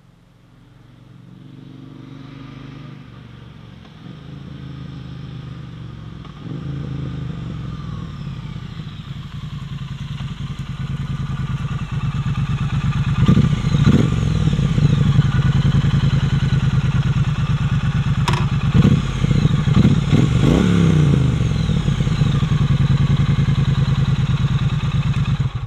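Triumph Street Cup 900's parallel-twin engine on its stock exhaust, growing steadily louder as the bike comes close. It then runs near at a steady, even beat, with a couple of rises and falls in revs about halfway through and again a few seconds later.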